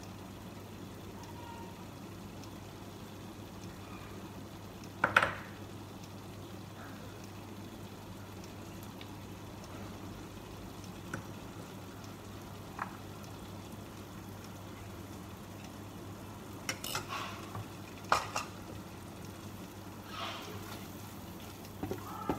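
Sambal with coconut milk cooking down in a frying pan, a steady low sizzle and bubble, with several sharp knocks on the pan or the counter, the loudest about five seconds in. Right at the end a wooden spatula starts stirring the pan.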